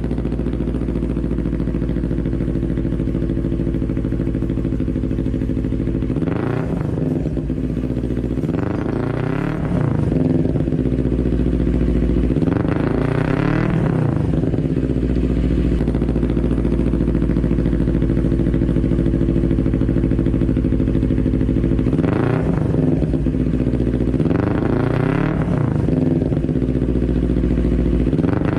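Parallel-twin sport motorcycle engine idling steadily through its exhaust, blipped several times in two groups, each rev rising and dropping quickly back to idle.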